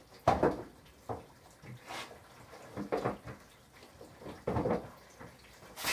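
Plastic seed trays being slid along and bumped against a wooden rack's slats as they are staggered: a series of irregular scrapes and knocks, the sharpest just after the start.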